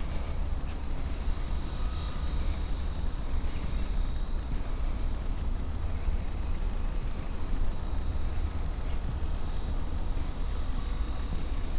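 Thin buzz of a small model aeroplane's motor and propeller, swelling and fading several times as it circles, over a steady low rumble.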